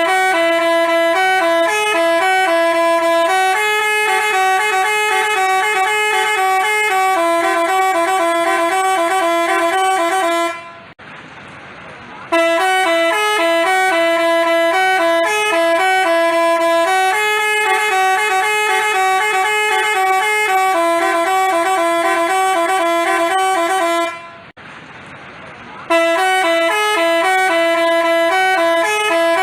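Telolet bus horn, a Basuri multi-tone electric horn, playing a tune of quick stepped notes. It plays in long phrases, broken by pauses of under two seconds about eleven seconds in and again about twenty-five seconds in.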